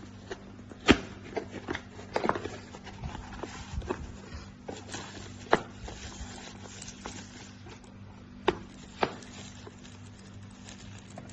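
Scattered clicks and knocks, loudest about a second in and thinning out after nine seconds, over a steady low hum.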